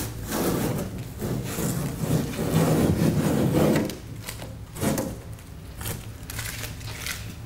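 Masking tape being peeled off a car's painted bonnet: a long rasping pull over the first four seconds, then a few shorter tugs.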